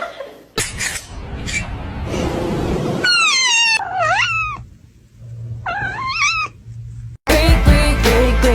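Domestic cat meowing twice: a long meow that dips and rises in pitch, then a shorter one, after a few seconds of noisy rustling. Music starts loudly near the end.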